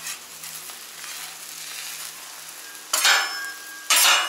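Eggs and breakfast foods sizzling on a Camp Chef FTG600 flat top griddle. About three and four seconds in there are two loud, short scrapes as a metal spatula pushes the fried eggs together across the griddle top.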